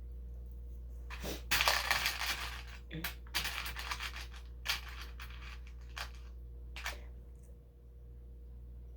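Small plastic LEGO pieces clattering and scraping as they are picked through and moved on a table. A dense rattle comes about a second in, followed by scattered clicks and a few single clicks of pieces being set down.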